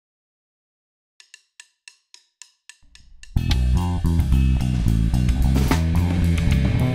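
Death metal track opening: after a moment of silence, about eight quick sharp ticks, then a low bass note swells and the full band comes in loud a little past three seconds in, with distorted guitar, bass guitar and drum kit.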